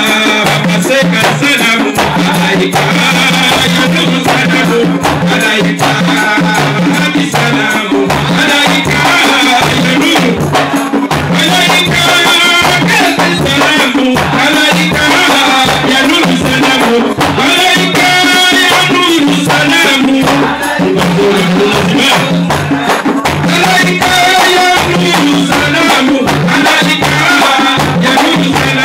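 Large hand frame drums (matali) beaten together in a steady repeating rhythm, with a man's voice singing over them through a microphone and loudspeaker.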